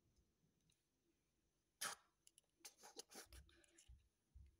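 Near silence, broken by faint handling noise from a tablet and its charging cable: a single tap about two seconds in, a short run of small clicks and rustles a second later, and a few low bumps near the end.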